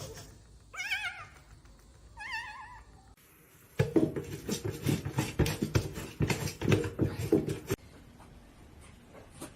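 A cat meowing twice, each meow short with a wavering pitch. Then comes about four seconds of rapid, irregular knocks and thumps.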